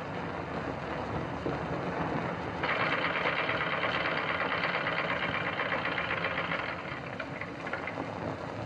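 Treadle sewing machine running with a rapid, even clatter, starting about three seconds in and easing off about seven seconds in, over the steady hiss of an old film soundtrack.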